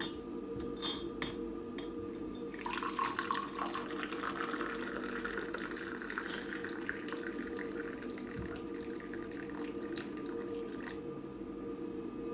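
Hot orange-and-lemon infusion being poured out of the pot, the pour starting about three seconds in and running on steadily, over a steady low hum.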